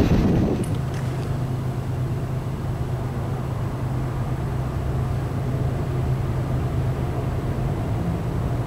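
The last cars of a heavy CSX freight train clattering past on the rails, fading out within the first second. Then a steady low hum with a few held tones.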